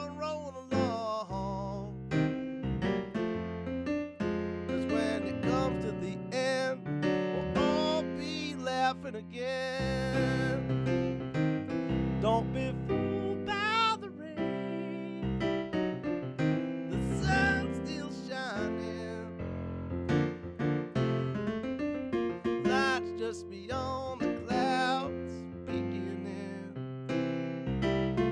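A man singing over his own digital piano playing, in a slow soul-style song. The voice slides and wavers through long held notes, with no words made out.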